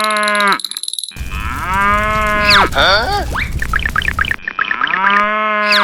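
Cow mooing: long, low moos repeated with the same shape, with quick whistle-like rising and falling glides between them about halfway through.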